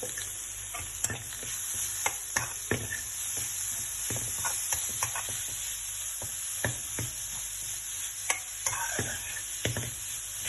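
Diced vegetables (carrots, potatoes, peas, onion) sizzling in oil in a pan while being stirred, with irregular knocks and scrapes of the spatula against the pan, a few each second.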